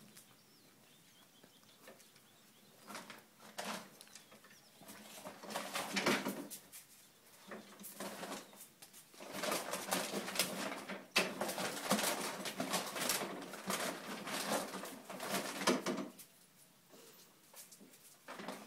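A coonhound rummaging with its head in a loaded wagon: bags and packaging rustle and crinkle in irregular bursts. The sound starts about three seconds in, is busiest through the middle and eases near the end.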